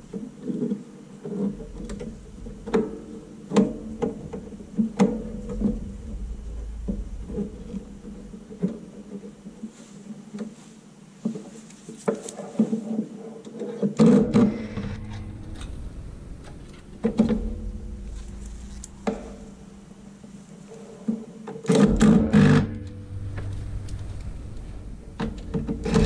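Handling noise from work inside an opened all-in-one PC: a series of irregular clicks and knocks as a metal shield plate and plastic case parts are pressed and seated, with a busier cluster of knocks about two-thirds of the way in.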